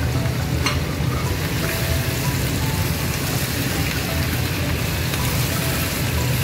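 Chicken pieces frying in hot oil in a non-stick wok, a steady sizzle as a spatula stirs them in the spices, with one short knock just under a second in.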